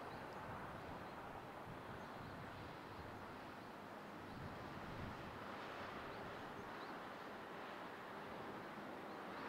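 Faint steady outdoor background rush, with a few faint short high chirps.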